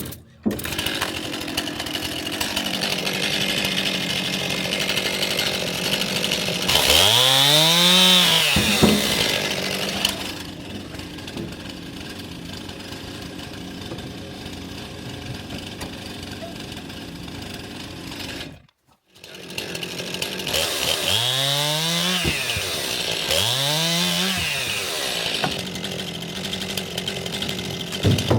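Stihl MS 261 two-stroke chainsaw running steadily between three rev-ups, each rising to full throttle and falling back.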